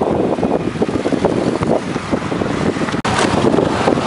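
Wind buffeting the microphone in a loud, rough rumble, over the sound of road traffic. The sound drops out for an instant about three seconds in.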